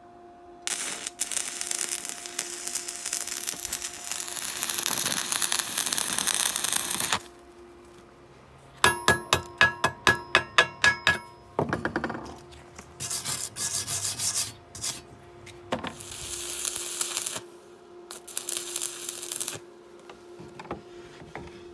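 Electric arc welding, its crackling hiss coming in stretches of a few seconds. About nine seconds in, a run of about ten sharp, ringing metal strikes: a chipping hammer knocking slag off the welds.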